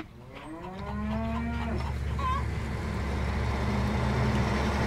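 A Holstein cow mooing once, one long call of about a second and a half that falls in pitch at the end, followed by a brief high chirp. Under it, the low rumble of a semi-truck on the road grows steadily louder as it approaches.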